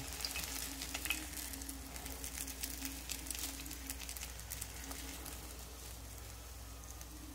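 Batter fritter frying faintly in shallow oil in a small cast-iron skillet, with a soft crackle that dies away as the oil cools with the burner off.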